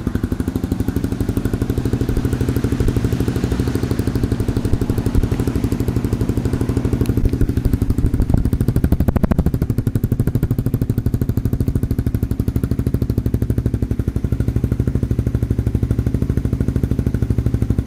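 Motorcycle engine idling through an aftermarket carbon smoke muffler fitted with its stock end dB killer, a steady stream of even exhaust pulses at an unchanging level. The end dB killer makes the idle quieter and smoother.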